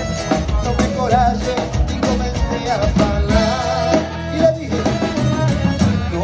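Live band playing an upbeat Brazilian pop tune: drum kit and guitar keep a steady beat under a wavering melody line, an instrumental stretch between sung verses.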